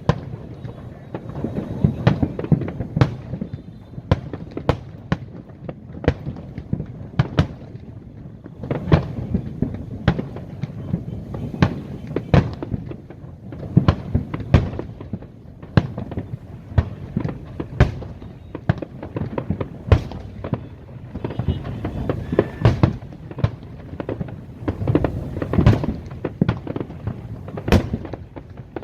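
Aerial fireworks going off in a dense barrage: many sharp bangs and cracks every second over a continuous low rumble of bursts.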